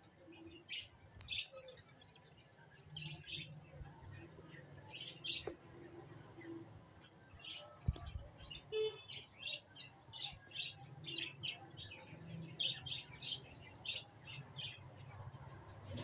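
Budgerigar chicks cheeping: short high chirps, several a second and busier in the second half. A single thump comes just before eight seconds in, and a brief raspy call about nine seconds in.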